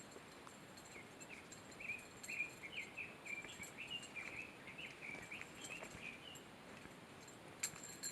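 A songbird singing a rapid phrase of many short notes for about four seconds, over a steady high insect buzz. A few sharp clicks come near the end.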